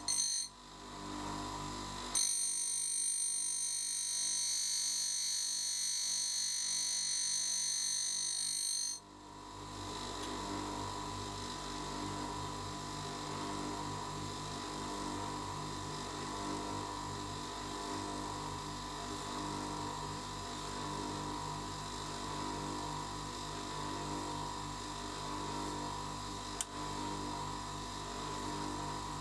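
Bench grinder running with an endmill's cutting edges being ground on its wheel. A high-pitched steady whine sounds from about two to nine seconds in, then drops away sharply. After that comes a steadier hum with a slow, regular pulse.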